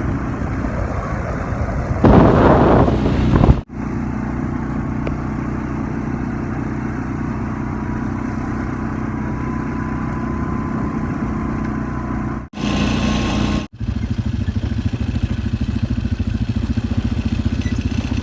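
A motor vehicle's engine running steadily, with a louder rushing noise for about a second and a half starting two seconds in. The sound cuts out abruptly for a moment three times.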